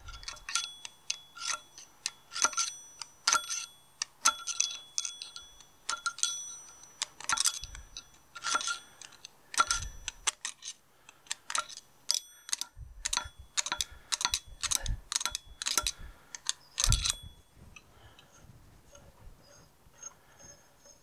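Sharp metal-on-metal clicks and light taps, irregular at about one or two a second, each with a short bright ring from the steel gear housing: a pointed tool working a nut round inside a David Brown 990 tractor's final drive to wind it off. The clicks stop about 17 seconds in, leaving only faint handling sounds.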